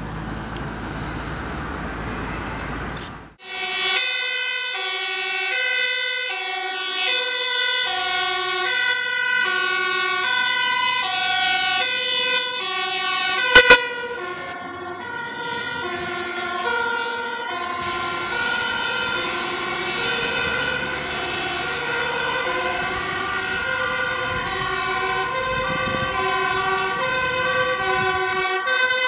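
Road traffic noise, then a Dutch fire engine's two-tone siren switching between a high and a low note about once a second as the truck passes close. A sharp, loud crack comes about halfway through, and the siren carries on somewhat quieter.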